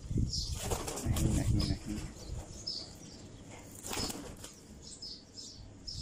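Falcon on its block perch flapping its wings in bursts, loudest about a second in and again around four seconds.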